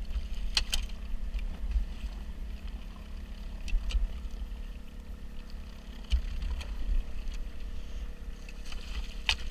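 Steady low rumble and constant hum of the bowfishing boat's running machinery, its motor and on-board generator, with a few sharp clicks and knocks scattered through.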